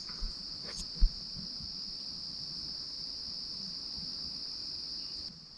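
Steady night chorus of crickets, one even high-pitched trill, with a short low thump about a second in.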